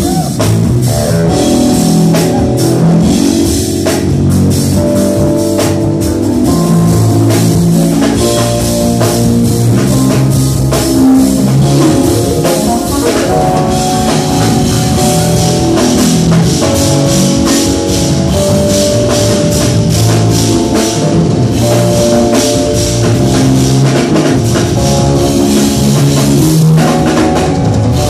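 Live band music from an electric bass, keyboards and a drum kit, played loudly through a club PA with a busy, stepping bass line under held keyboard notes.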